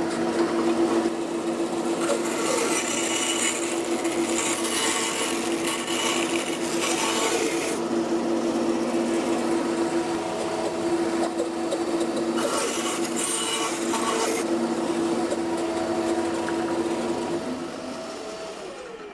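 Bandsaw running with a steady hum, cutting twice through plastic adjustable furniture feet to shorten them: first a long cut, then a shorter one. Near the end the saw is switched off and the hum falls in pitch as the blade runs down.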